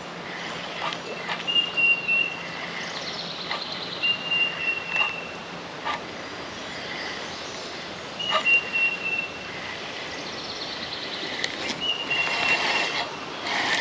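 Wild birds singing: one clear, even whistled note held about a second and repeated every three to four seconds, with warbling songs from other birds between, and a few short sharp clicks.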